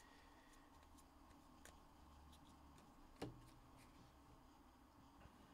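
Near silence with faint ticks of trading cards being handled and shuffled, and one louder tap about three seconds in.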